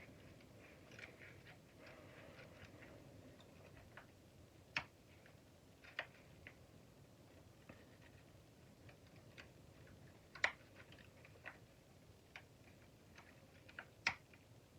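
Tin snips cutting through the copper windings of a shop vac motor: sharp snaps a few seconds apart, with lighter clicks between. The loudest snaps come about ten and fourteen seconds in.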